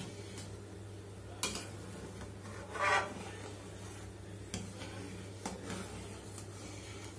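Metal ladle stirring thickening milk in a metal kadhai, scraping along the bottom of the pan to keep the milk from sticking and scorching, with a few short scrapes and knocks, the loudest about three seconds in, over a steady low hum.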